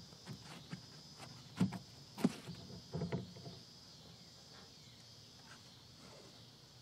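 Knocks and scrapes of the worn factory 6x8 rear door speaker being pulled out of its mounting hole in the door panel. There are a few sharp knocks in the first three seconds, then only faint handling.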